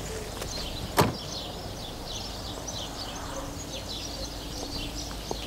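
A car door of a first-generation Renault 5 slams shut once, about a second in, over steady chirping of small birds.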